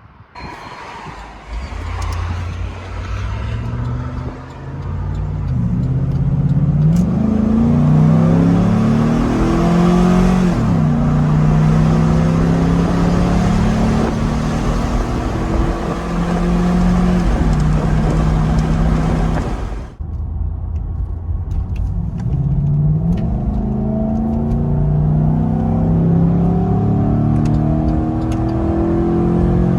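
A 2011 Chevrolet Avalanche's 5.3-litre V8 accelerating, its note climbing in pitch and dropping back at each upshift. About 20 seconds in, the sound cuts to a second, more muffled acceleration run of the same kind.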